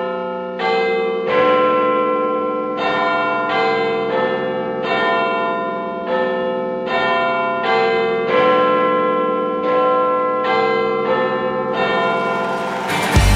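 Song intro of bell-like chime tones striking a slow melody, one note every second or so, over a held chord. The full band, with drums and bass, comes in near the end.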